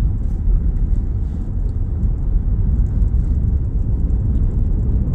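Steady low rumble of tyres and road noise heard inside a vehicle's cab, driving at about 80 km/h on an unpaved road.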